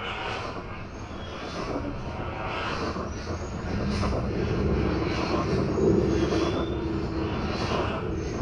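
An industrial machine-world soundscape in the film's sound design. A dense, low mechanical rumble and drone runs under a rhythmic hiss that repeats about three times every two seconds. It swells louder around the middle, where a steady low hum joins in.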